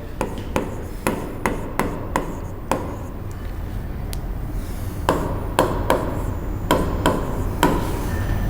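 Writing on a classroom board: a series of sharp taps and knocks as the pen or chalk strikes the board, about two a second, pausing for a couple of seconds in the middle. A steady low hum runs underneath.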